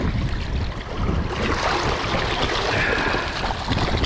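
Wind buffeting the microphone over shallow sea water washing and splashing around a wading angler's legs, the splashing getting stronger about a second in.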